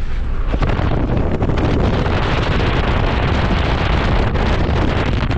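Loud rush of wind and tyre noise heard through an open car window while driving fast on an unsealed dirt track, with a constant clatter of small ticks from the rough, muddy surface under the wheels.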